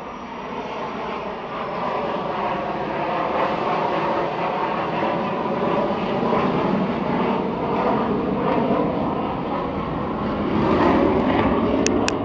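Military jet flying over, its engine noise building over the first couple of seconds, then staying loud.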